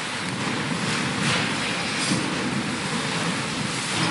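Congregation shuffling and rustling as it gets to its feet, a steady wash of noise with no clear voices.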